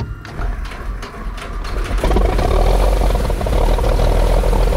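Cessna 310's piston engine turning over on its starter, then firing about two seconds in and running loudly: its first start after sitting since 1984.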